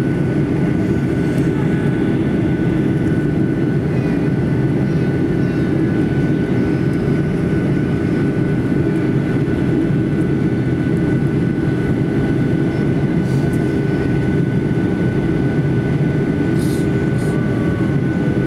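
Steady jet-engine and airflow noise heard inside an airliner's cabin in flight, with a thin steady high whine running over it.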